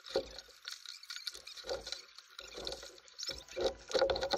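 Kayak paddle strokes: the blades of a double-bladed paddle dip and splash in the water about once a second, with water dripping off them.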